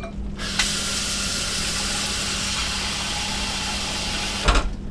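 Kitchen tap running water into the sink as a steady hiss for about four seconds. It is turned on abruptly and shut off with a clunk near the end.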